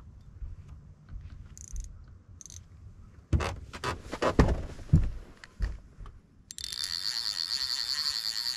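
Several loud knocks and thumps from handling gear in the boat, then, past the halfway point, a fishing reel's drag starts buzzing steadily with a rapid clicking pulse as a large fish pulls line off against it.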